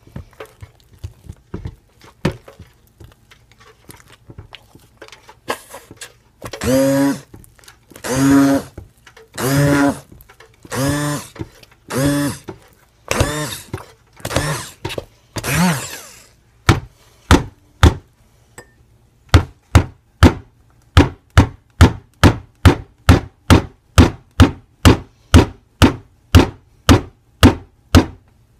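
Stick blender in a crock pot of very thick hot-process soap paste: the motor runs in about seven short one-second pulses, then gives way to a steady run of sharp knocks, about two a second, as the blender head is thumped down into the stiff paste against the pot.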